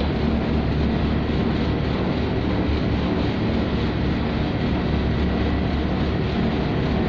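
A tugboat's diesel engines running steadily under way, a constant low drone heard inside the wheelhouse.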